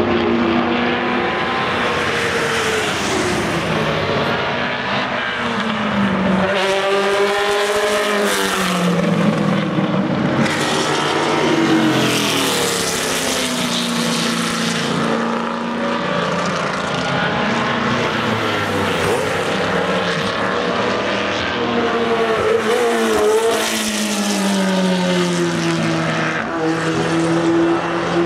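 Sports racing cars' engines at race pace, several cars passing one after another. Their pitch rises and falls with revs and gear changes, and engine notes overlap throughout.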